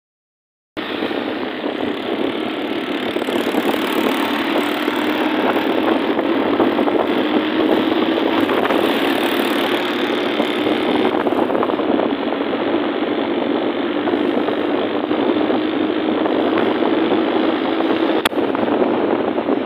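Loud, steady rush of road and wind noise from a moving vehicle, with an engine hum underneath that rises slightly in pitch and then holds; it starts abruptly after a short silent gap.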